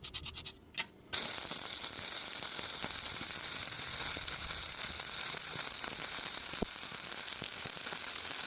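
Electric welding arc welding UNP steel channel to thin pipe: a few short clicks, then a steady crackling sizzle that starts about a second in.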